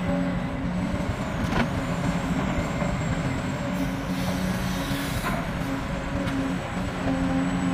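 Large Caterpillar hydraulic excavator's diesel engine running steadily under load. About four seconds in there is a hiss lasting a second and a half, and a couple of brief knocks.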